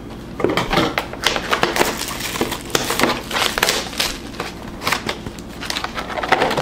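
Clear plastic shrink wrap crinkling and crackling irregularly as it is pulled and torn off a sealed trading-card box.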